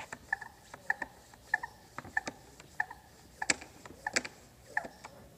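Hand pump sprayer being pumped: a click with a short squeak on each stroke, about three strokes every two seconds.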